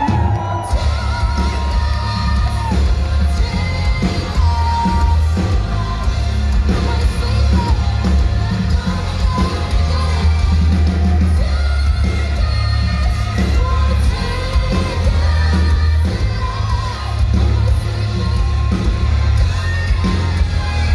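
A live band playing on a festival stage, with a singer's vocals over loud, heavy bass, heard from the crowd.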